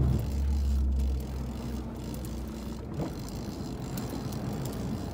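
Boat engine running with a steady low hum, dropping in level about a second in.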